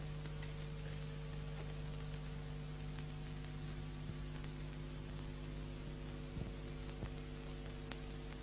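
Steady low electrical hum with faint hiss from an old film soundtrack, with two faint clicks in the second half.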